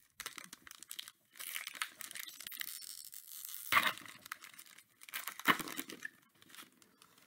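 A Donruss card pack's wrapper being torn open and crinkled by hand: a long tearing stretch, then two sharper, louder crackles, one about four seconds in and one about five and a half seconds in.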